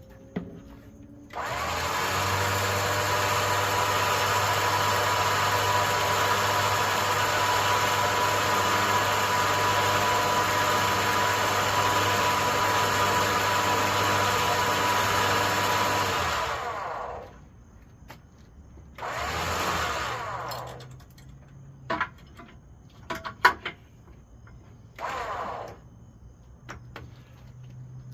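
Harbor Freight 9000 lb electric winch motor running under power for about fifteen seconds, spooling in new steel cable, with a steady whine that winds down as it stops. Then come two short bursts of the winch a few seconds apart, and a few sharp clicks.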